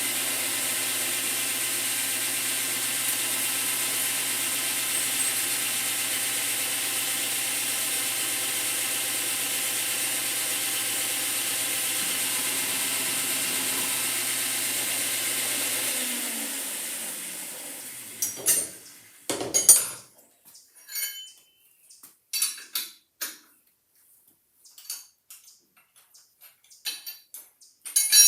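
Milling machine running steadily while drilling out a broken 10-32 screw, its motor and spindle winding down about sixteen seconds in. After that come scattered short metallic clinks and taps as metal parts and tools are handled.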